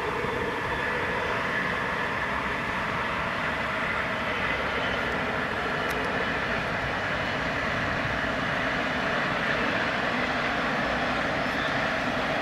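Two coupled TGV high-speed trainsets passing at speed, a steady rushing noise of wheels on rail and air that grows slightly louder.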